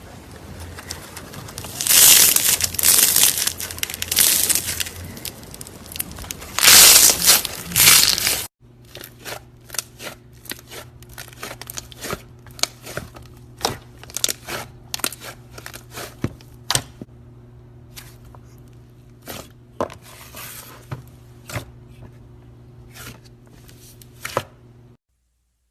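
Slime being squeezed and worked by hand, with dense crackling and crinkling. After a cut about eight seconds in, it gives a run of separate sharp pops and clicks over a faint steady hum.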